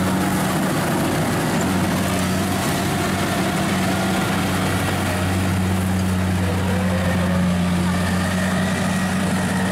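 Kubota DC-70 rice combine harvester's diesel engine running steadily while the machine cuts standing rice, a constant low hum.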